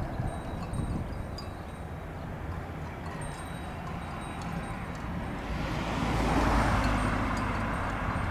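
Military propeller transport aircraft passing, its engine and propeller noise swelling to a peak about six and a half seconds in and then easing off, over a steady low rumble of wind on the microphone.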